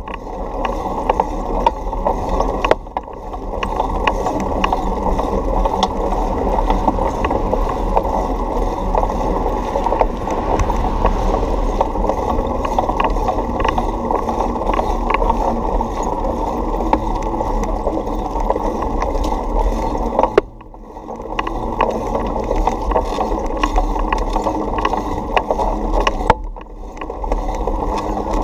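A bicycle rolling along sidewalk pavement: a steady rumble of tyres and riding vibration with many small rattles and clicks over the bumps. It drops away briefly about three seconds in and twice near the end.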